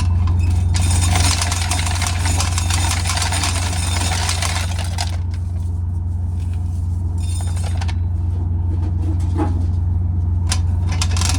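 Dry rasping and rattling of corn kernels being shelled off the cob by hand, in stretches of a few seconds, over a steady low engine drone.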